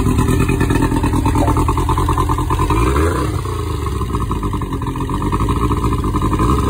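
Evinrude 60 hp two-stroke outboard engine running with its cowling off. The engine speed drops about three seconds in, and it runs a little quieter after that.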